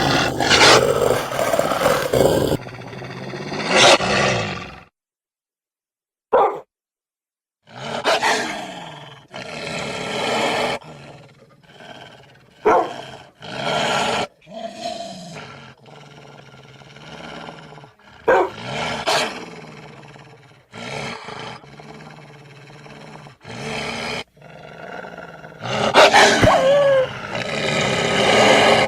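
Series of wolf and dog growls and snarls edited one after another as sound effects, each lasting a second or two, with a pause about five seconds in.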